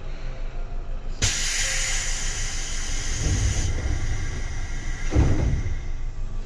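Sudden burst of compressed-air hiss from a Seibu 2000 series train's pneumatic system, starting about a second in and fading away over a few seconds, over the steady low rumble of the car, with two low thuds partway through.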